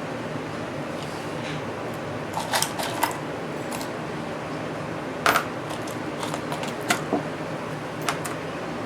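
Small sharp clicks and taps of tools and tiny metal parts being handled while a model-train motor is put back together, in a cluster a couple of seconds in and then singly every second or two. A steady hiss of a fan runs underneath.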